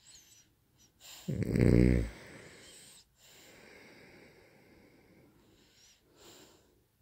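Loud snoring: one loud snore of under a second about a second and a half in, followed by several seconds of quieter breathing.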